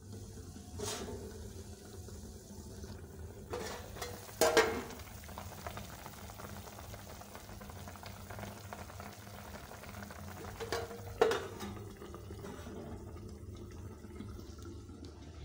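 Aluminium cooking-pot lid lifted off with a metallic clank about four and a half seconds in, and knocked back onto the pot around eleven seconds, with a lighter tap near the start. Between the clanks, a steady low bubbling from the pot of smoked fish simmering on the stove.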